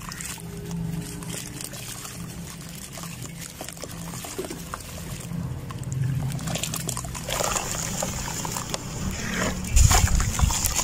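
Wet sand-cement chunks crumbled by hand into a basin of water: gritty crumbling, trickling and sloshing. It gets louder and grittier after about seven seconds, with heavy splashes of falling clumps near the end.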